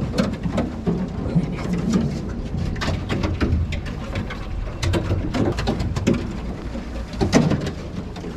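Floating glacier ice crackling and popping in the water: irregular sharp clicks over a low, steady rumble.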